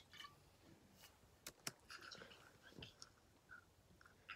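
Near silence: room tone with a few faint, sharp clicks.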